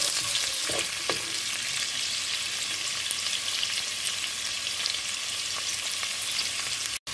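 Chopped red onions frying in oil in a pan, a steady sizzle, with a wooden spatula scraping and stirring them in the first second or so.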